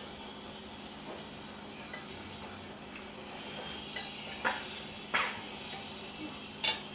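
Pans and utensils being handled while a beef roast is readied for the oven: a few scattered clinks and knocks, the loudest two just past halfway and near the end, over a steady low hum.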